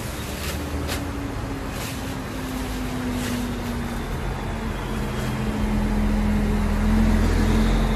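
A motor vehicle's engine running, its hum slowly rising in pitch and getting louder as it speeds up, with a few clicks in the first four seconds.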